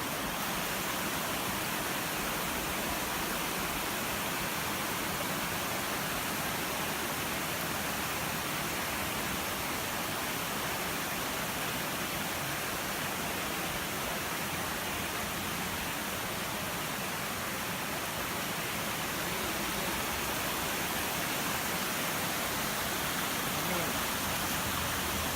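Waterfall and river water rushing over rocks, a steady unbroken noise.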